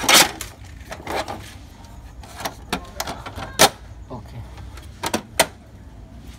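Sharp clicks and knocks, about seven in all, from a laser printer (HP Color LaserJet Pro MFP M177fw) as its output tray and printed pages are handled, over a low steady hum.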